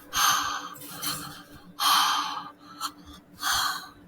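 A person breathing out in loud, breathy gasps close to the microphone, three times about a second and a half apart.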